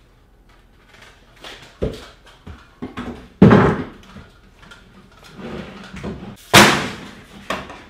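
Large wooden screen frame made of painted 2x4 being flipped over on a plywood workbench: a few knocks and scrapes of wood on wood, with two loud knocks about three and a half and six and a half seconds in.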